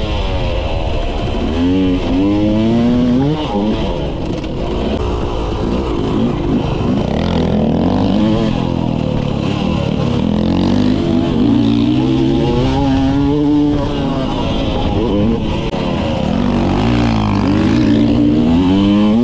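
Yamaha YZ250 two-stroke motocross bike's engine, heard close up from on board while being ridden. Its revs climb and drop again and again as the rider accelerates, shifts and backs off through the corners.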